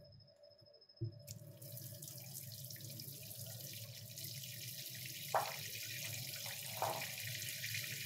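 Kitchen tap turned on about a second in, water running steadily into the sink. Two brief knocks sound over the running water near the middle.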